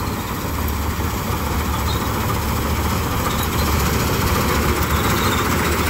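2001 Swaraj 8100 combine harvester running steadily while cutting wheat: a constant engine hum under a broad rush of machinery noise, growing louder from about halfway as the machine comes closer.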